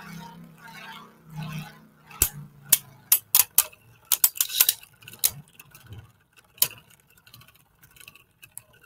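Spinning Beyblade Burst tops humming in the stadium, then a run of sharp, irregular plastic clacks as they collide.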